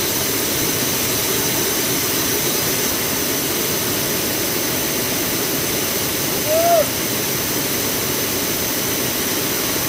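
Waterfall: water pouring over a wide ledge into a shallow pool, a steady, even rushing. About six and a half seconds in, a brief rising-and-falling tone sounds over it.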